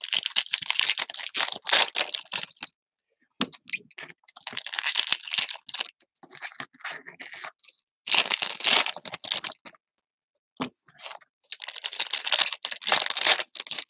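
Trading card pack wrappers from 2019 Topps Update hobby packs being torn open and crinkled by hand, in about five bursts separated by brief pauses.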